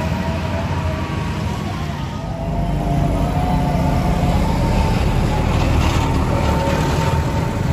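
Road traffic passing close by: a motorcycle, then a Mitsubishi light truck with its engine running, growing louder about three seconds in as the truck comes past.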